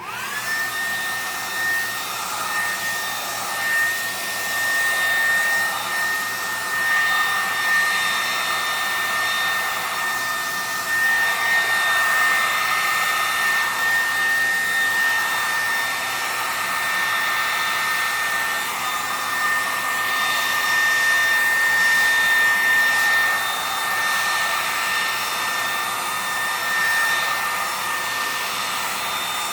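Hair dryer switched on and running loud and steady, its motor whine rising to pitch as it spins up, over the rush of air.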